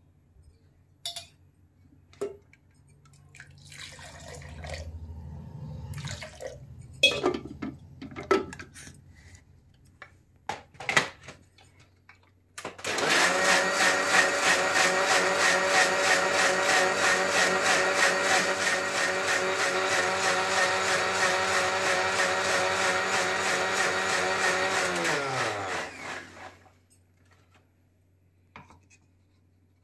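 A few knocks and clicks, then an electric mixer grinder (mixie) runs steadily for about twelve seconds, grinding aloe vera pieces and ginger with a little water in its steel jar. After it is switched off, the motor winds down with a falling pitch.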